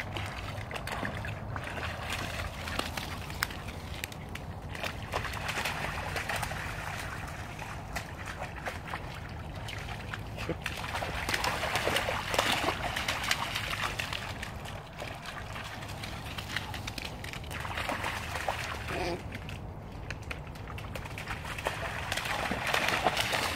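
A golden retriever puppy wading and splashing through shallow pond water. The sloshing is loudest about twelve seconds in and again near the end.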